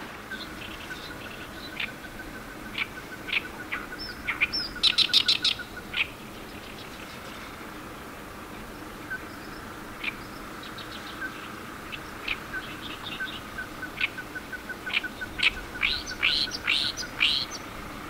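Oriental reed warbler singing, loudest in two bursts of rapid notes about four seconds in and again near the end. Beneath it a ruddy-breasted crake calls a run of short notes on one pitch that come faster and faster, twice over.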